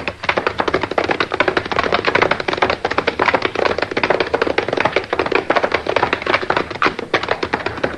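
Sound-effect hoofbeats of horses galloping: a fast, continuous clatter of hooves.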